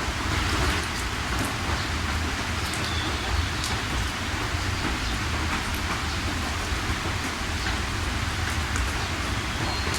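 Steady heavy rain falling, a dense even hiss with scattered sharper drop ticks and a low rumble underneath.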